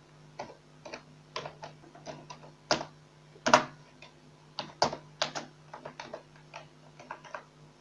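Computer keyboard keys being typed one by one: slow, irregular clicks, with a few louder strokes, over a faint steady low hum.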